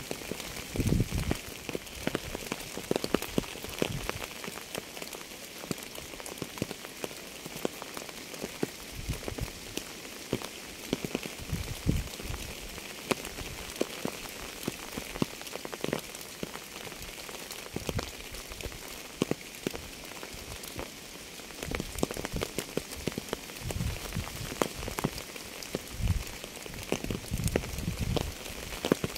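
Steady rain falling, with many separate raindrop impacts. Heavier drops land with dull low thuds, more of them near the start and in the last several seconds.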